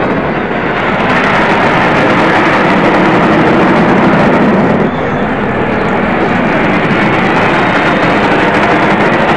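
Jet engine noise from a formation of military jets flying over, loud and steady, with a brief dip about halfway through.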